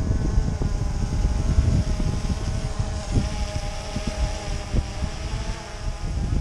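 Multirotor drone's propellers humming steadily while it hovers with a heavy fishing bait rig it can barely lift, with strong gusts of wind buffeting the microphone.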